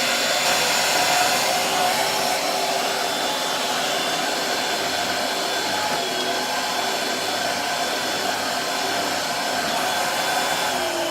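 Shark cordless stick vacuum running steadily, a motor whine over rushing air; its pitch starts to drop at the very end as it winds down.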